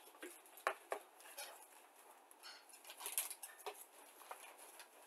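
Faint handling of plastic model-kit parts: a hard plastic sprue of wheels clicks twice as it is laid down on a cutting mat, then a clear plastic parts bag crinkles and rustles about halfway through, with scattered light taps.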